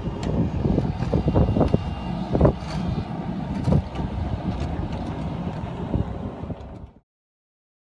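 Wind buffeting a phone's microphone outdoors: an uneven low rumble with gusty surges and scattered thumps, cutting off suddenly near the end.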